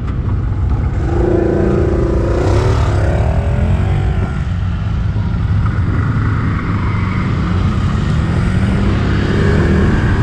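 ATV (quad bike) engine running, its pitch rising and falling as it revs about a second or two in, then running steadily.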